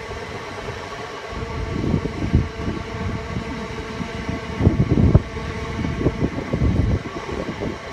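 Class 379 electric multiple unit pulling out and running away along the line, a faint steady electric whine over a low rumble. Gusts of wind buffet the microphone, loudest about five seconds in.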